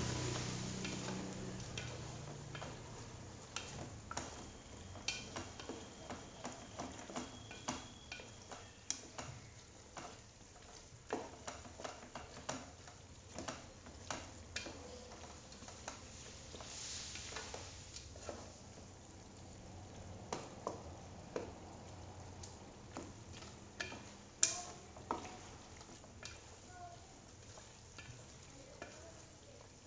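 Spatula stirring thick chili sambal in a stainless steel pot, with repeated short knocks and scrapes against the pot and a low sizzle of the paste cooking. One knock near the end is sharper than the rest.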